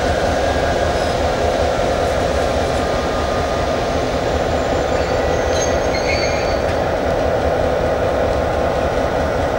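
NSWGR 42 class diesel-electric locomotive 42107 and 49 class 4903 moving slowly past with their diesel engines running steadily as they reverse the train. A few brief, faint high squeaks come from the wheels about five to six seconds in.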